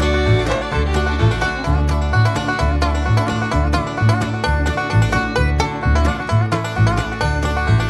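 Background music: fast bluegrass-style tune with plucked banjo over a steady bass beat.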